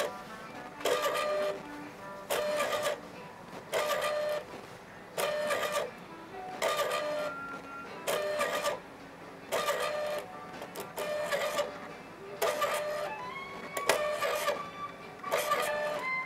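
Stepping motor driving a rack-and-pinion one-axis table on U-groove bearings, running in short whining bursts of under a second, about every second and a half.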